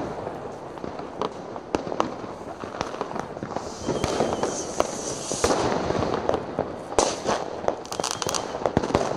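Fireworks and firecrackers: irregular sharp bangs and pops over a steady crackle and rumble, with a hissing stretch about halfway through.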